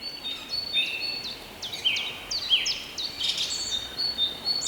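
Birds chirping: many short, high whistled notes, some sliding down in pitch, overlapping one another.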